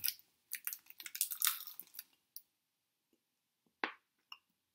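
Candy wrapper crinkling as it is handled: a dense run of crackles for about two seconds, then quiet apart from one sharp click near the end.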